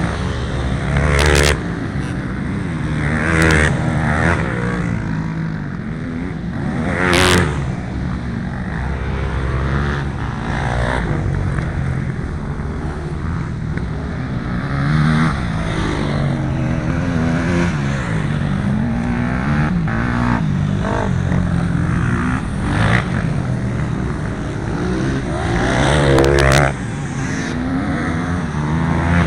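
Motocross dirt bikes' engines revving and passing one after another around the track, the pitch rising and falling with each throttle change. Several bikes go by loudly close up, the loudest passes about a second in, midway through and near the end.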